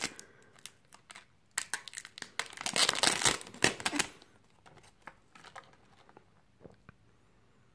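Clear plastic packaging crinkling as a plastic mounting bracket is pulled out of it, in irregular crackles that are thickest in the middle and die away after about four seconds.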